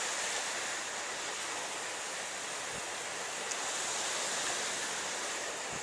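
Steady hiss of a heavy rainstorm driven by wind.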